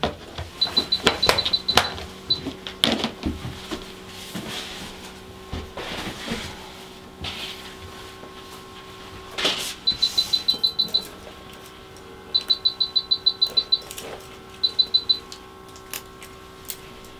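Short runs of rapid, high-pitched electronic beeping, about ten beeps a second, come five times over a low steady hum of surgical-suite equipment. Scattered clicks and rustles come from the paper drape and towel clamps being handled, with the loudest click about nine seconds in.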